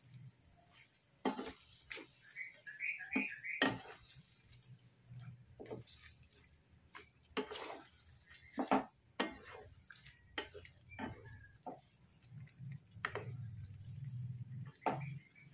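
Wooden spatula knocking and scraping against a frying pan while whole shrimp in sauce are stirred, in irregular clicks and taps.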